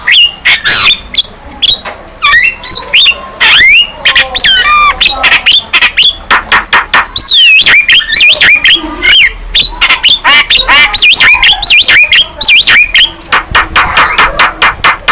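Young Javan myna singing in full voice: a fast, loud, unbroken jumble of rising and falling whistles, harsh squawks and sharp clicks.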